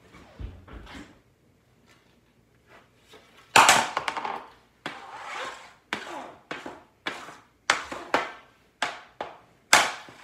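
Hockey stick blade and puck scraping and clacking on a plastic shooting pad during stickhandling: one loud stroke about three and a half seconds in, then quick strokes about two a second, each starting sharply and fading fast.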